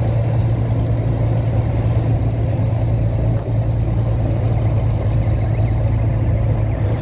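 Volvo NH 380 truck's diesel engine running steadily, a constant low drone with road noise.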